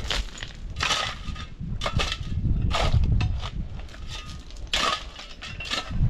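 A long-handled tool scraping and dragging through stony ground, loose stones grinding and clinking with each stroke, about one stroke a second, over a low rumble.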